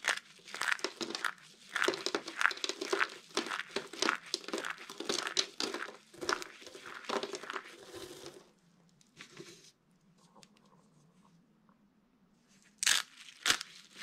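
Brittle dry soap shards crushed and squeezed in bare hands: a dense run of crisp crunches and crackles. It stops about eight seconds in, with one brief crunch after, and resumes near the end.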